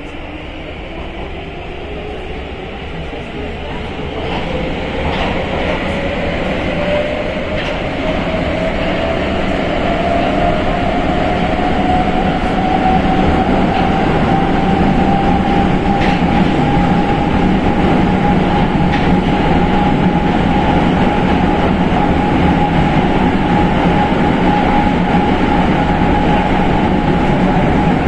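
Metro train accelerating: the traction motor whine rises in pitch for about fifteen seconds, then holds steady as the train runs at speed, over the rumble of wheels on rail with occasional clicks from rail joints.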